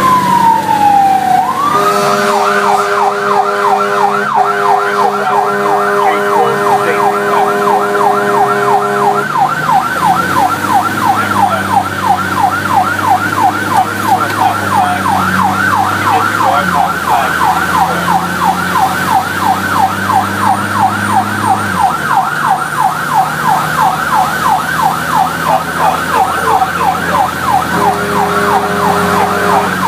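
Fire apparatus electronic siren, heard from inside the cab of the responding quint. A wail falls away, then about two seconds in the siren switches to a fast yelp of about four sweeps a second that keeps going. A steady air-horn blast is held for several seconds early on and again near the end, over the truck's engine drone.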